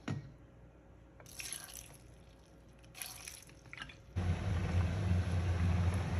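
Faint liquid dribbling and dripping into a bowl of vegetables and fish, then about four seconds in a steady low electrical hum with fan noise starts abruptly: an induction cooktop running under the pot.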